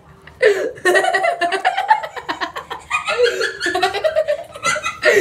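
Hearty human laughter, breaking into quick repeated pulses of giggling and chuckling.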